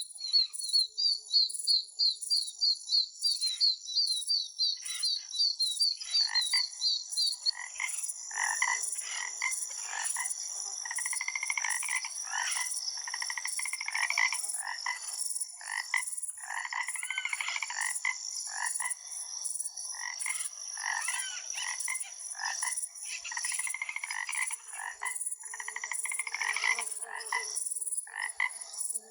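A chorus of frogs croaking, dense and continuous from about eight seconds in, over a steady high-pitched hum. Before the frogs take over, a bird sings a rapid run of high chirps, about four a second.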